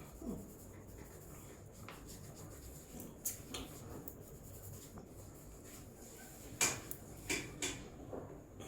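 Hands working on a person's head and hair during a head massage: a string of short, irregular rubbing and slapping sounds, the loudest about two-thirds of the way through.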